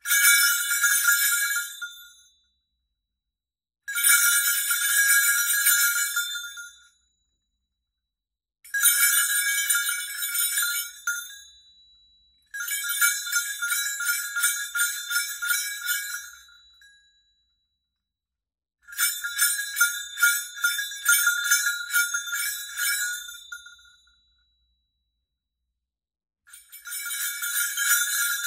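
Muted bells shaken in short bursts, a damped jingling that comes in six separate rounds of a few seconds each, with silence between them.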